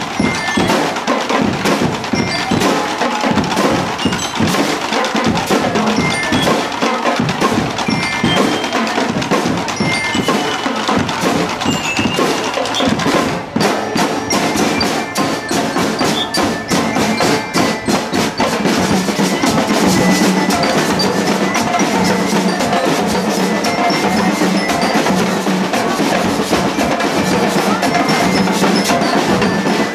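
Marching percussion band playing: bass drums and snare drums beating a steady rhythm, with the bright metallic melody of bell lyres over them. Loud and continuous.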